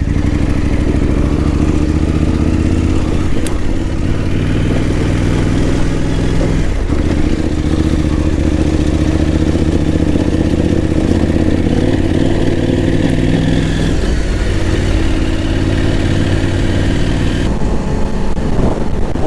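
KTM 890 Adventure R parallel-twin motorcycle engine running steadily under way, with brief dips in the engine note about seven and fourteen seconds in.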